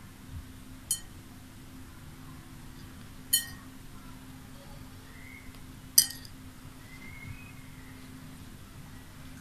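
Pearl beads clinking against a plate as they are picked out for stringing: three short, sharp clicks, about one, three and a half and six seconds in, the last the loudest. A steady low hum runs underneath.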